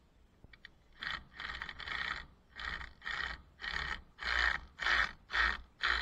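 Rhythmic scraping strokes, about two a second, starting about a second in and growing louder toward the end, like a hand tool worked back and forth.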